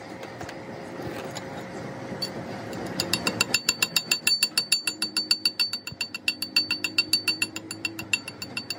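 Hammer striking steel in a quick, even run of about six or seven blows a second, each blow ringing with a metallic tone. It starts about three seconds in, after low, steady workshop noise.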